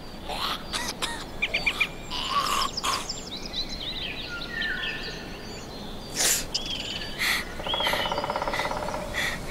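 Several songbirds chirping, trilling and whistling in woodland, with a louder sharp call about six seconds in and a buzzy, rapidly pulsed call near the end.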